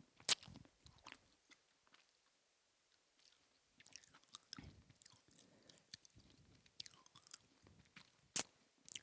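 A person biting and chewing a duck wing: faint crunching and chewing with a few sharp clicks. The loudest clicks come just after the start and again near the end, with a short quiet spell in between.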